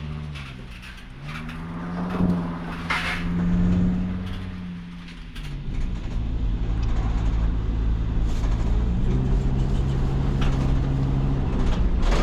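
2006 Sprinter van's turbodiesel engine heard from inside the cab on the road, pulling with the pitch climbing and holding, easing off about five seconds in, then building again and running steadily, over low road rumble. A few sharp ticks sound in the first three seconds.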